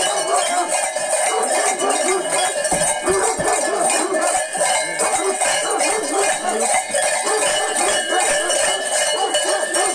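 Bells on a sheepskin-costumed saya figure jangling and clanking continuously as it moves and dances, over a clamour of many overlapping voices.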